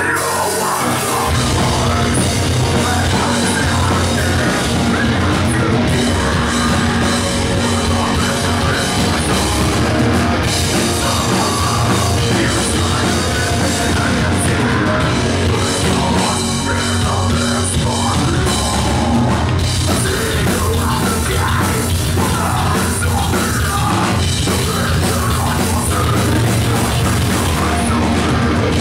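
Live post-hardcore band playing loud: distorted electric guitars, bass and drum kit, with a vocalist singing through a microphone. The full band with its heavy low end comes in about a second in.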